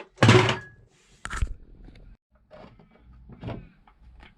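Hex bit in a socket being worked on stuck screws: a loud scraping burst at the start, a sharp knock about a second later, then scattered small clicks and knocks.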